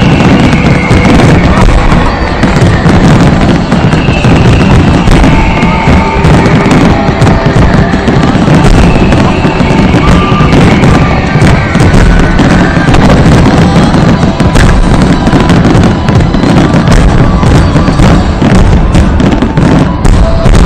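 Fireworks display going off in a dense, continuous barrage of bangs and crackles, with music playing under it.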